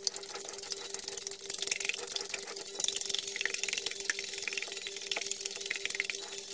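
Wire balloon whisk beating raw eggs in a glass bowl: rapid, continuous clicking and scraping of the wires against the glass. A steady low hum runs underneath.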